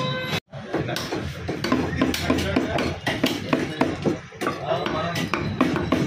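Heavy butcher's cleaver chopping goat meat and liver against a wooden log block: a run of quick, irregular knocks, with a brief break in the sound about half a second in.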